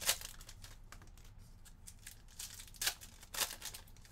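Plastic trading-card pack wrapper crinkling and rustling as hands open it and handle the cards, with a sharp crackle just after the start and two more about three seconds in.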